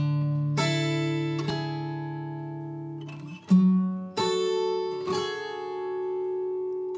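Background music of an acoustic guitar playing slow plucked chords and notes, each left to ring, a new one about every second.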